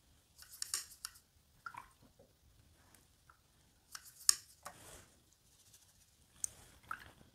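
Paintbrush and paint-mixing sounds on a watercolour palette: a scatter of light clicks, taps and scrapes, the sharpest a single click about four seconds in.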